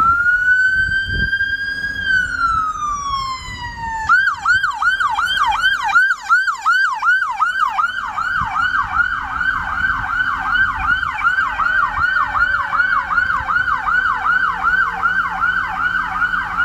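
Emergency vehicle's electronic siren: a wail that rises, holds and falls over about four seconds, then switches to a fast yelp of about three sweeps a second. A fainter low tone slides down in the background partway through.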